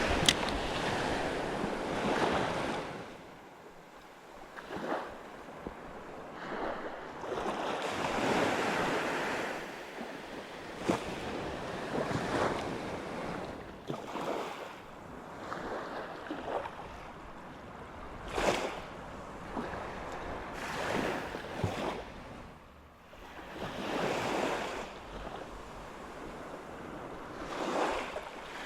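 Sea waves washing in against the shore, rising and falling in irregular surges, with wind buffeting the microphone.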